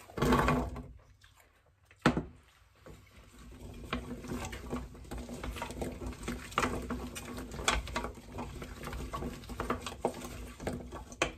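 Chopped carrots tipped from a bowl into a pot of frying onions, tumbling in with a brief rattle, and a single knock about two seconds in. From about three seconds a wooden spoon stirs the carrots through the onions, a continuous irregular scraping and crackling in the pan.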